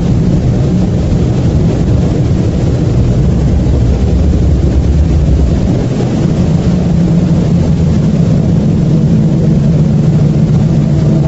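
A loud, steady low rumbling drone. Its deepest part drops away about six seconds in, leaving a humming band that stays.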